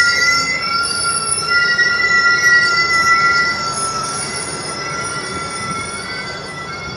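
Union Pacific passenger cars rolling past close by, their steel wheels squealing in several steady high tones over the rumble of the trucks on the rails. The sound eases off gradually through the second half.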